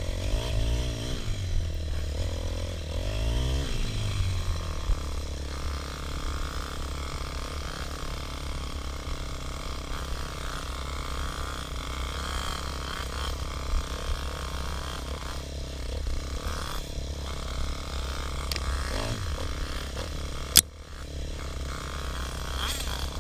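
Dirt bike engine running under way on a trail, revving up and down in the first few seconds and then held steadier. A sharp knock near the end.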